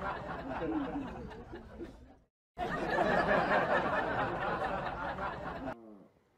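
Indistinct voices chattering with snickering laughter, cutting out briefly about two seconds in. Near the end a chihuahua gives a short whine that falls in pitch.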